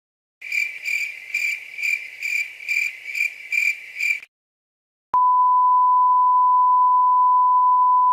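Cricket chirping sound effect, a high chirp repeating about twice a second for about four seconds, the stock 'awkward silence' crickets. After a short silence a single steady censor bleep tone starts and holds.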